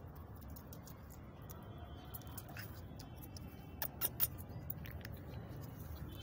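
Handling noise from a phone and hand around a Rottweiler puppy: a low rumble with scattered small clicks, and three sharper clicks close together about four seconds in.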